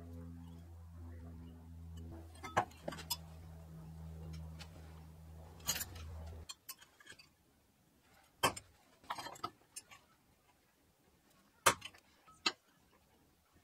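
Sharp metallic clinks and taps, a few seconds apart, from steel pieces being handled. For the first six seconds or so a low steady hum runs underneath, then it cuts off abruptly.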